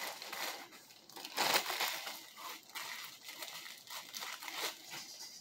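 Irregular crinkling and rustling, as of something being handled close to the microphone, with a louder rustle about one and a half seconds in.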